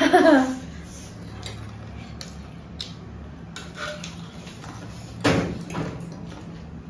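Metal forks and spoons clicking and scraping against ceramic plates during eating, with a louder knock about five seconds in. A brief voice at the very start.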